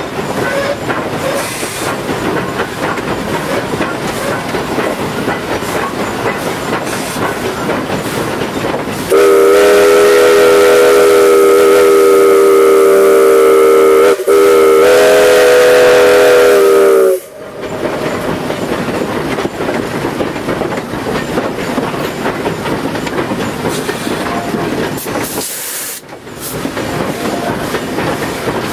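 Steam whistle of Tweetsie Railroad's narrow-gauge steam locomotive No. 12, heard from inside the cab over the steady running and rail clatter. About nine seconds in it sounds two loud blasts: a long one of about five seconds, then after a brief break a shorter one of about three seconds that cuts off sharply.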